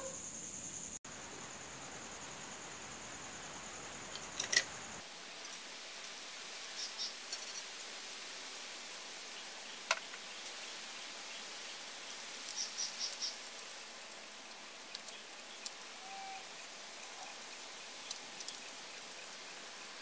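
Faint background hiss with a steady high-pitched tone that cuts off abruptly about five seconds in, followed by scattered light clicks and ticks.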